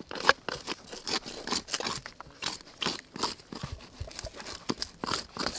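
Knife scraping the scales off a large fish on a wooden board: a quick, irregular run of short scrapes.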